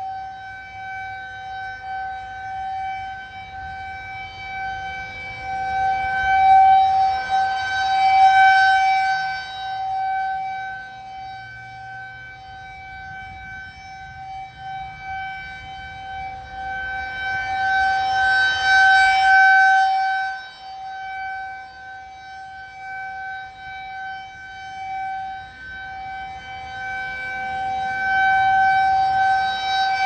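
Nuclear-plant outdoor warning siren sounding a test: one steady, obnoxiously loud high tone that does not rise and fall in pitch. It swells and fades in loudness about every 11 seconds as the rotating horn sweeps toward and away, peaking three times.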